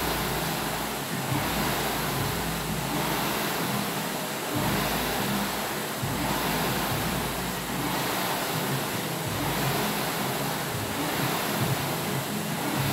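Air-resistance rowing machine's fan flywheel whooshing under hard rowing, the rush of air surging and fading with each stroke.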